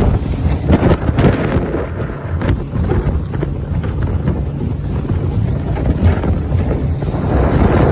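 Heavy wind buffeting the microphone over the steady drone of a PW 25 panga's engine running at speed, with irregular knocks and splashes as the hull slaps through choppy water.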